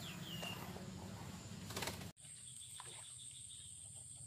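Faint background ambience: a couple of short bird chirps over a low steady hum. About two seconds in, an abrupt cut leaves quieter open air with a steady high-pitched drone.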